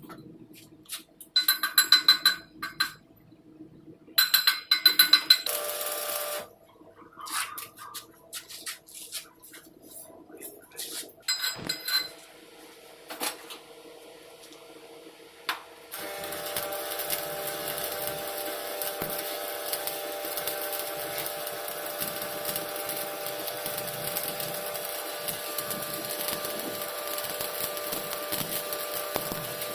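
Rapid metal-on-metal taps ringing off the steel pipe in two short flurries, then scattered clatter. About halfway through, the steady dense crackle of a shielded metal arc (stick) welding arc starts and runs on.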